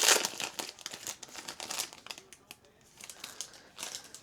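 Plastic trading-card pack wrapper crinkling and being torn open in the hands. There is a loud rustle at the start, then scattered short crinkles.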